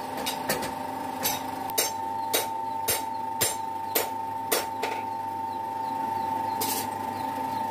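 Blacksmith's forge shop: an electric motor or forge blower whines steadily while hammer blows strike hot steel about twice a second. The blows stop for a second or two near the end.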